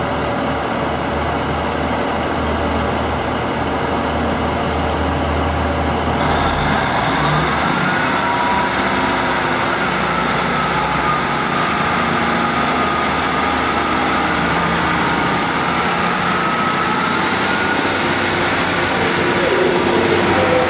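Class 150 Sprinter diesel multiple unit's underfloor diesel engines idling with a low steady hum, then revving up about seven seconds in with a rising whine that levels off as the train pulls away.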